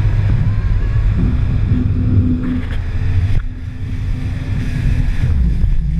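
Jet ski running at speed, a steady engine drone under heavy wind buffeting on the microphone and the rush of spray and water against the hull. The level dips briefly a little past the middle.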